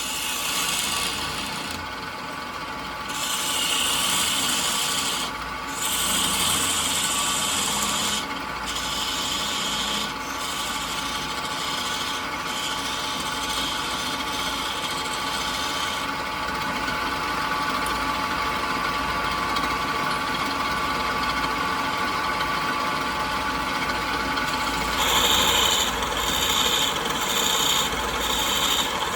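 Wood being rubbed with an abrasive tool in rough strokes of a second or two each, over a steady machine hum. Near the end the strokes quicken to about two a second.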